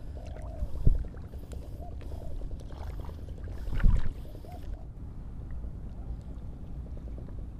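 Shallow sea water sloshing around legs wading knee-deep, over a steady low rumble, with two louder thumps about a second and about four seconds in.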